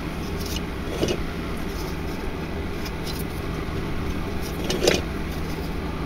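Light clicks and knocks of metal as the knife maker's blade vise is handled and adjusted, one about a second in and a louder knock near the end, over a steady low rumble.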